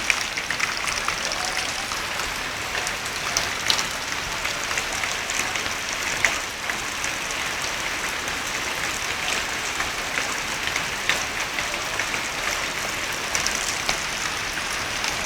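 Rain falling steadily: a dense, even patter with scattered louder drops.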